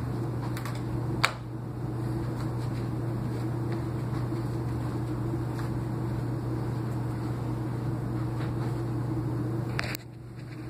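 Steady low fan hum, with a sharp click about a second in and a knock from the camera being handled near the end, after which the hum drops in level.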